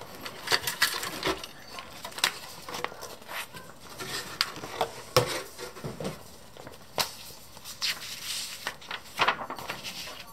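Plastic model-kit sprues handled and lifted out of their cardboard box, with irregular light clicks, clacks and rattles of hard plastic, and a papery rustle as the instruction sheet is spread out.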